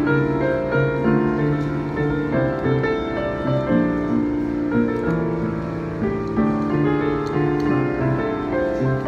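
Solo piano playing a pop song: held chords over a moving bass line with a melody on top, at an even, moderate loudness. The instrument is a painted Yamaha public piano.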